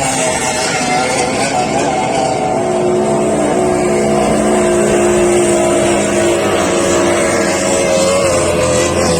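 Motorboat engine running steadily: a continuous droning hum over a broad rushing noise.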